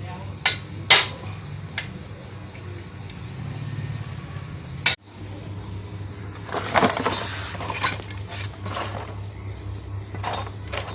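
Metal tools and parts clinking and knocking while a motorcycle engine is worked on. There are sharp strikes just under a second in, another about five seconds in, and a stretch of handling noise after that, over a steady low hum.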